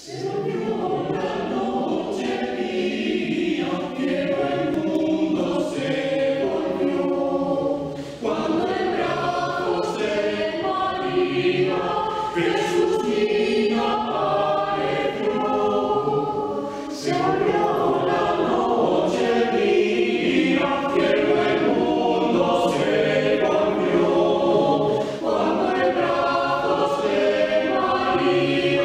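Mixed choir of women's and men's voices singing a traditional Christmas carol (villancico) from the Alpujarra in harmony, in phrases with short breaks about 8, 17 and 25 seconds in.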